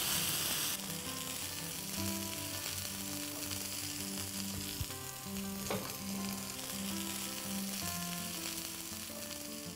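Pork meatballs sizzling as they fry in browned butter in a skillet, with a spatula scraping and turning them. The sizzle is louder for about the first second, and there are a couple of sharp knocks around the middle.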